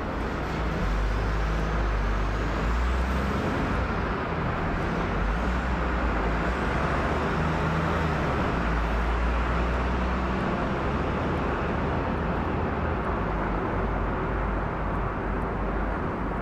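Distant jet roar of a climbing Boeing 777-300ER's twin GE90-115B turbofans: a steady, loud rumble with a slowly swelling deep low end.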